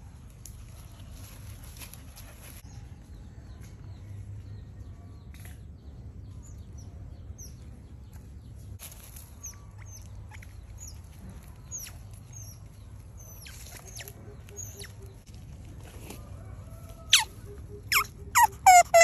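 Quiet outdoor background with scattered faint bird chirps, then near the end a few loud, sharp, high-pitched squeaks from an otter, each sweeping steeply down in pitch.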